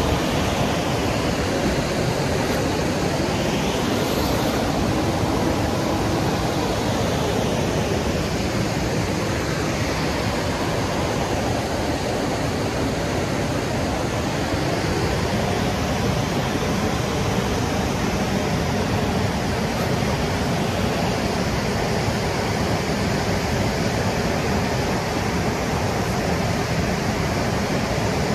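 A waterfall rushing: a steady, loud wash of falling water. Faint sweeping tones rise and fall in places.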